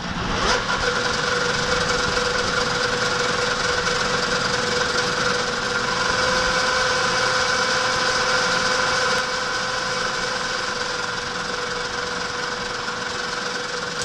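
Metalworking machine tool running with a steady whine made of several held tones over a hiss. It comes in sharply at the start and drops a little in level about nine seconds in.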